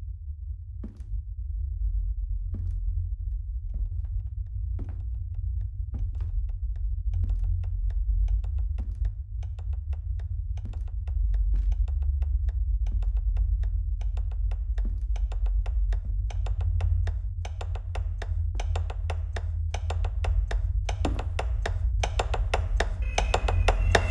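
Film score sound design: a steady low drone under sharp ticking knocks that start about once a second and speed up to several a second. Near the end a new cluster of tones comes in.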